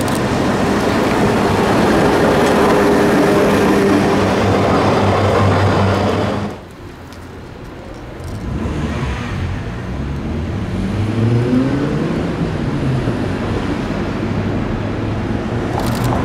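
Street traffic with a Tatra T4D tram approaching and a steady low hum. About six and a half seconds in, the sound drops suddenly. Cars then drive past, their engine notes rising and falling as they accelerate and pass.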